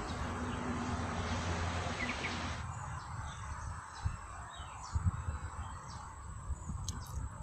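Steady outdoor background hiss and low hum that cuts off abruptly after about two and a half seconds, with a few short bird chirps. Then a few faint knocks and clicks from handling the lure and the caught snakehead as the hook is worked free.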